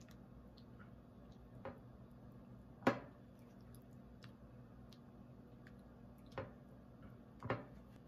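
A metal ladle and pan knocking lightly against a plate as thick, starch-thickened sauce is spooned onto rice, with soft wet plops of the sauce. Four short knocks, the loudest about three seconds in.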